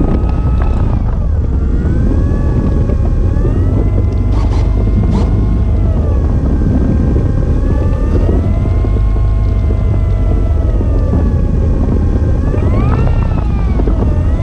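Electric motor and propeller of a large RC model Cessna 150 (E-flite Carbon Z), heard from a camera on the model's wing. The whine rises and falls as the throttle is worked during taxiing, climbing sharply near the end, over a heavy rumble of propwash and vibration on the microphone.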